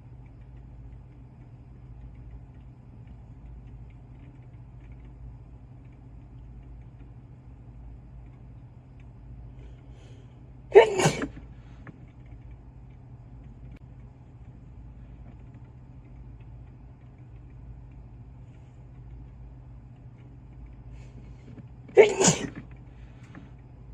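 A person sneezing loudly twice, about eleven seconds apart, each sneeze a sudden sharp burst that trails off within a second. The sneezes are brought on by an induced tickle.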